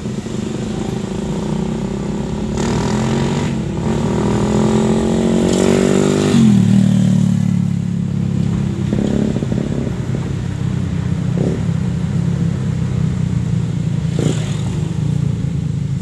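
Vehicle engine heard from inside a car's cabin on a winding climb. Its pitch rises for a few seconds, drops sharply at a gear change about six seconds in, then runs steady, with a couple of short knocks later on.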